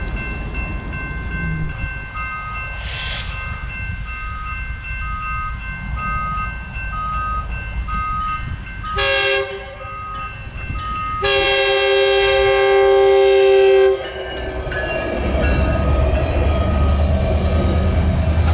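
Grade-crossing warning bell dinging steadily while a Metrolink commuter train approaches and sounds its multi-chime horn: a short blast about nine seconds in, then a long blast a couple of seconds later. Near the end, the train's low rumble builds as it passes the crossing.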